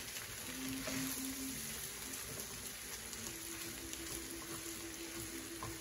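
Fried rice sizzling in a hot oiled frying pan as it is stirred and broken up with a wooden spatula: a steady fine crackle.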